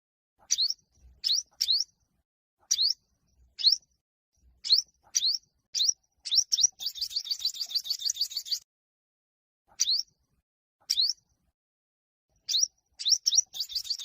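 Olive-backed sunbird singing: a string of sharp, high chirps, spaced about half a second to a second apart. The chirps break into a fast trill about seven seconds in, lasting nearly two seconds, and into another short trill near the end.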